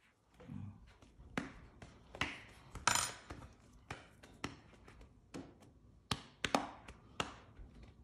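Sharp, irregular clicks and taps of metal surgical forceps being handled and worked during a bird's crop surgery, about eight in all, with a brief rustle about three seconds in.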